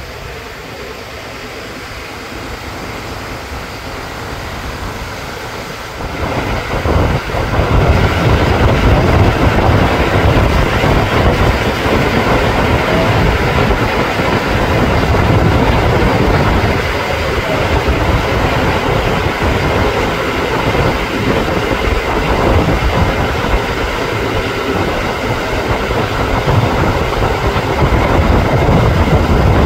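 Fishing boat under way: its engine running steadily with water rushing along the hull, getting louder about six seconds in.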